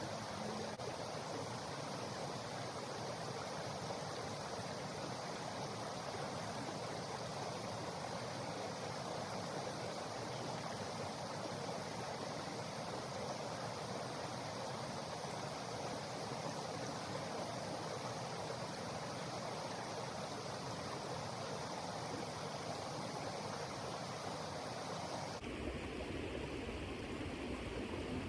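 Creek water running with a steady rushing sound. About three seconds before the end the sound changes abruptly to a duller tone with more low rumble.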